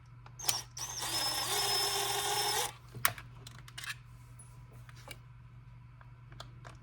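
A small power driver spins up about half a second in, runs steadily for about two seconds and stops, as used to back out screws; scattered clicks and taps of small parts being handled follow, over a steady low hum.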